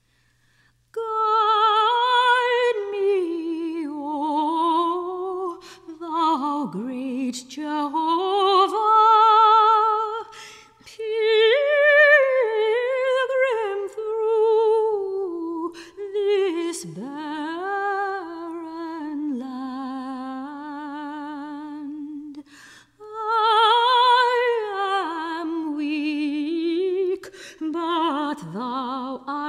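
Soprano voice singing a slow, sustained melody with wide vibrato, with no piano heard. Phrases are separated by brief breaks about ten seconds in and again a little over twenty seconds in.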